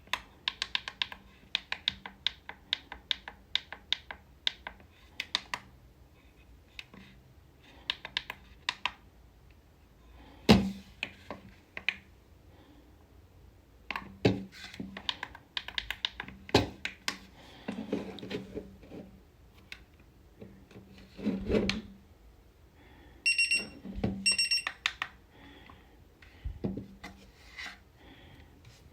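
Buttons on a LISRFNIEAN digital alarm clock clicking in quick runs of presses, with several heavier handling thumps. Near the end the clock gives two short electronic beeps.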